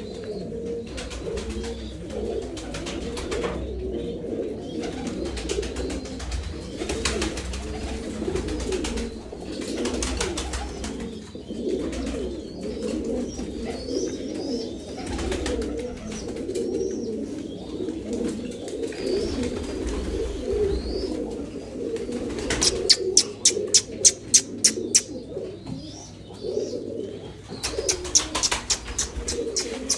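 A flock of domestic pigeons cooing together without pause, many low calls overlapping. About two-thirds of the way through, and again near the end, a quick run of sharp claps stands out above the cooing.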